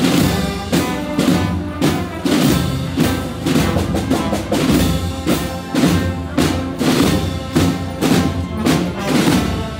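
Processional band playing a march: brass holding sustained chords over a steady drum beat of about two strokes a second.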